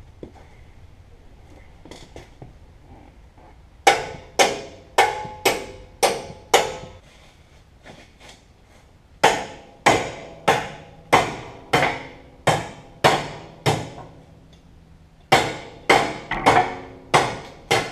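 Hammer blows on the steel rear axle and air-suspension parts of a truck, knocking them apart: three runs of sharp, ringing strikes, about two a second, starting about four seconds in.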